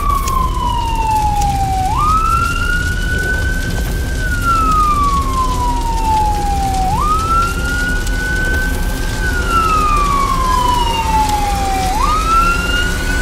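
Police car siren wailing in slow cycles of about five seconds. Each cycle jumps up in pitch, climbs a little more, then falls slowly, over a steady low rumble.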